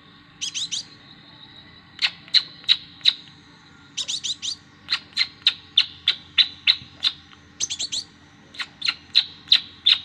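Young sunbird ("kolibri ninja") calling: sharp, high chips. Some come singly, about three a second, and others in quick runs of four or five, with runs near the start, midway and near the end.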